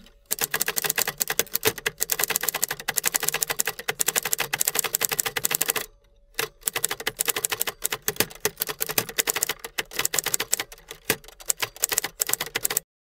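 Rapid, dense clicking like keys being typed, in two long runs with a short break about six seconds in, cutting off abruptly near the end.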